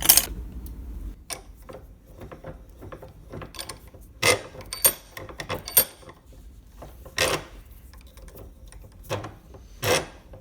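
Irregular clicks, clunks and rattles of metal tools and parts being handled and set down on a workbench, with a sharp knock right at the start.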